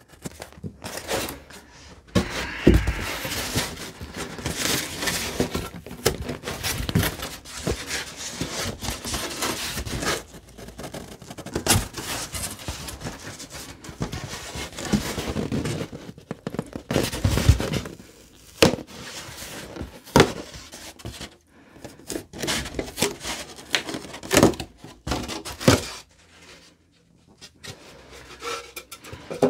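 Utility knife cutting through half-inch pink XPS foam insulation board in irregular scratchy strokes with sharp clicks. Later the cut foam piece is lifted and worked free by hand, knocking and flexing.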